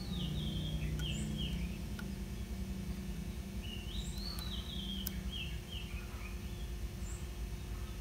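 A songbird singing short phrases of clear, gliding whistled notes, one phrase at the start and another about four seconds in. A few faint clicks come from the small metal parts of the camera's film back being handled.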